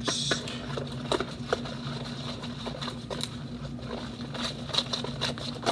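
A spatula scraping and tapping against a plastic mixing bowl as a thick mayonnaise-and-mustard dip is lightly stirred, making a run of irregular clicks over a steady low hum.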